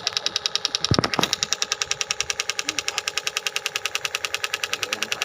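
Homemade plywood miniature Dongfeng diesel engine running, its mechanism clattering with a rapid, even ticking of about a dozen clicks a second. Two dull thumps come about a second in.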